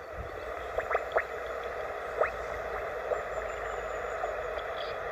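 Steady receiver hiss from a Yaesu 857 transceiver's speaker on an empty CB channel, with a few short rising whistles in the first half.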